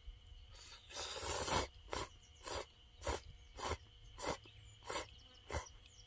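A person slurping ramen noodles held up with chopsticks: one long slurp about a second in, then a run of seven short eating sounds at an even pace, a little under two a second. A steady high insect tone runs underneath.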